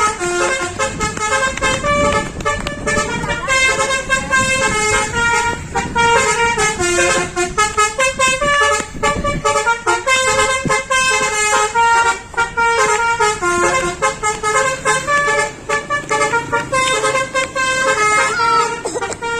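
A bus's Basuri telolet horn, a set of multi-tone air horns, playing a long unbroken tune of quickly changing notes.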